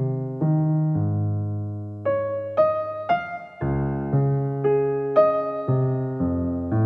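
Background music played on electric piano: a run of notes and chords, a new one struck about every half second.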